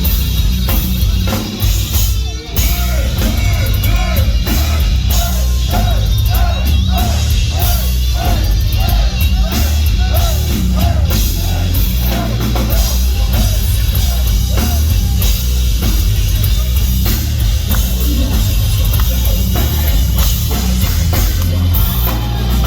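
Heavy metal band playing live and loud, with pounding drums and distorted guitars and a repeated riff figure through the middle of the passage.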